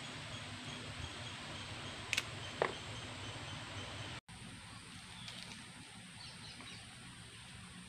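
Steady outdoor background noise with two sharp snaps, cauliflower florets being broken off by hand, in the first half. The sound cuts out for a moment, then faint bird chirps come through over the hiss.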